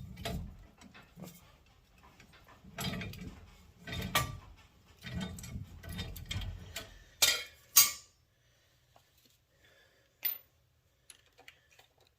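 Scattered metallic clicks, knocks and scrapes of hand tools and steel parts as a truck's leaf-spring pin is worked out, with two sharp clanks about seven seconds in, then it goes quiet apart from one more click.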